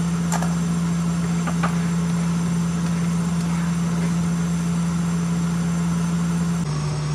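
Steady low machine hum that drops slightly in pitch near the end, with a few faint light clicks in the first two seconds.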